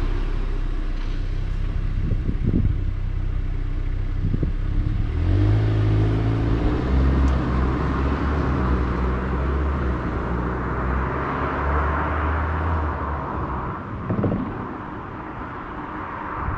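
Volkswagen Golf 8 R's 2.0-litre turbocharged four-cylinder running through an Akrapovič exhaust in Normal drive mode, with the car driven at a moderate pace. The engine note grows louder and climbs a little in pitch about five seconds in as the car accelerates, holds, then eases off near the end.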